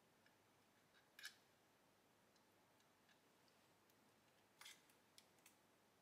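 Near silence with a few faint clicks and snips, the clearest about a second in and just before the five-second mark: small cutters working on the fan's wires while the fan's plug is swapped for the old one.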